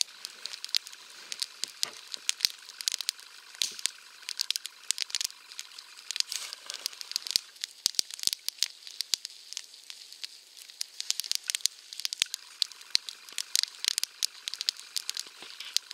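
Campfire of spruce twigs crackling on a tree stump, with many sharp, irregular pops and snaps over a steady hiss.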